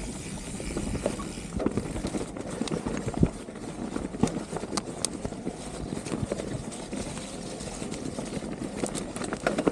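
Specialized Turbo Levo electric mountain bike riding fast over a rooty dirt trail: a steady rumble of knobby tyres on dirt with frequent sharp clacks and rattles as the bike bounces over roots.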